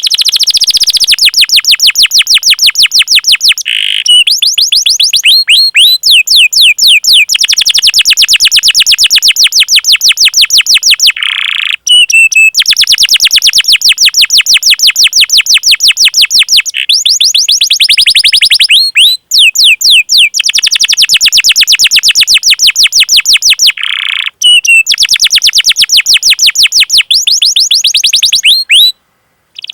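Domestic canary singing long rolling trills of rapid, evenly repeated high chirps ('cuit cuit'), broken by several short pauses.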